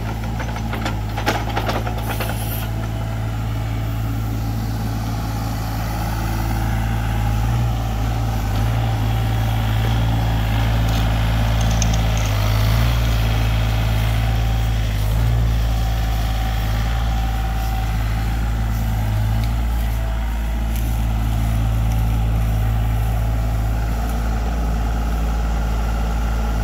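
Sany SY35U mini excavator's diesel engine running steadily as it digs, its note rising a little under load a few seconds in. A few sharp knocks sound in the first two seconds.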